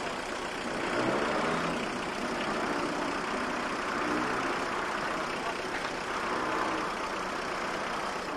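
Heavy vehicle engines running steadily.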